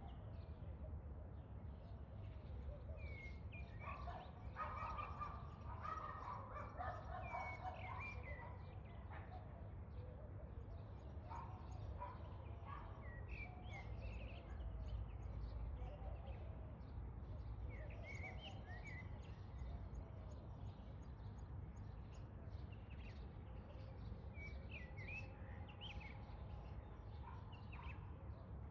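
Birds chirping and calling, many short high chirps scattered throughout, over a steady low rumble.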